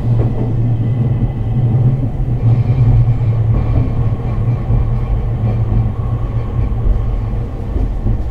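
Hakodate City Transportation Bureau 8000-series streetcar running along the track, heard from inside the car: a steady low rumble of wheels and running gear.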